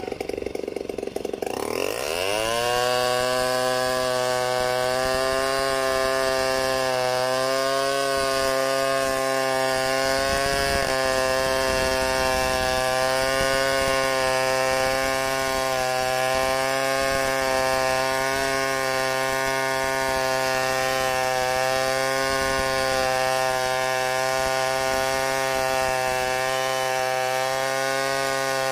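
Large two-stroke chainsaw revving up from idle about two seconds in. It then runs at a steady high throttle as it rips lengthwise through a log, freehand milling it into planks.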